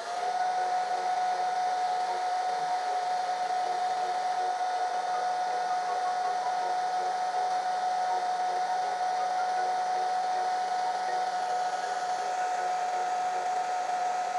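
Handheld hair dryer running steadily: a constant rush of air with a steady motor whine.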